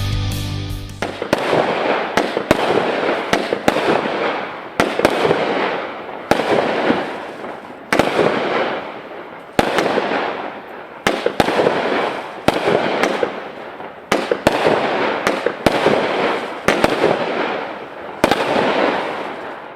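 Sky King Royal Flush 200-gram, 15-shot consumer firework cake firing: a run of sharp bangs about once a second, each fading out over about a second. Music plays briefly at the start.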